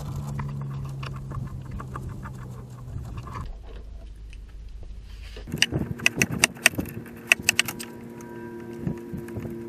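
Ratchet working a bolt loose on the AC condenser bracket: runs of quick metallic clicks, then several louder sharp clanks of metal tools and parts about halfway through.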